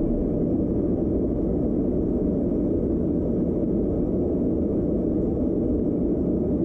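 Blacksmith's forge running, a steady low rumble of the fire and its air supply while a knife blade heats for hardening.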